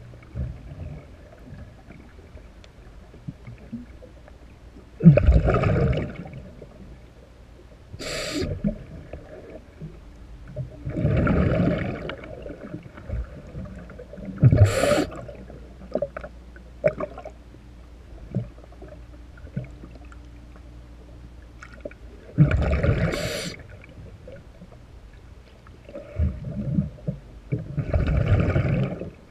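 A scuba diver breathing underwater through a regulator: five bursts of exhaled bubbles, each about a second long, come roughly every five or six seconds, with a couple of short sharp hisses between them.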